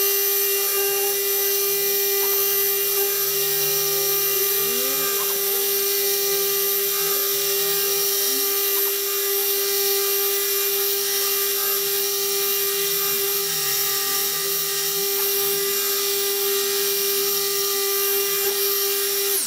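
Dual-action car polisher running at its top speed with a steady high motor whine, its foam cutting pad pressed hard against a painted car door to cut down orange peel in repainted clear coat. The motor is switched off right at the end.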